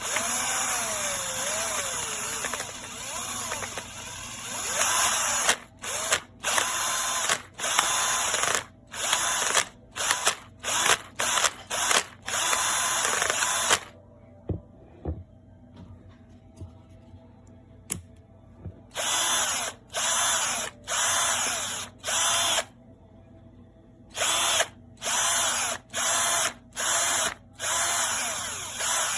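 KIMO 20V cordless drill driver's motor running, its speed rising and falling for the first few seconds. Then it runs in many short bursts as the trigger is pulled and released, with a pause of about five seconds in the middle.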